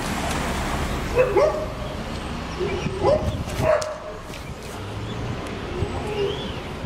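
An animal's short calls, several bending up and down in pitch in quick runs about a second in and again around three seconds in, over a steady low rumble.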